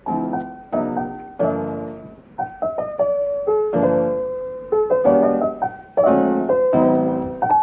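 Background music: soft piano playing chords and melody notes, each struck and fading.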